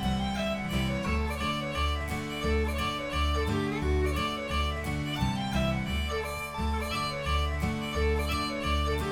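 Background music: an upbeat fiddle tune over plucked strings, with a bass line pulsing evenly.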